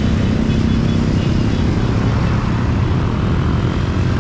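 A large group of motorcycles riding past together, their engines blending into a loud, steady drone, with a few faint short high beeps in the first second or so.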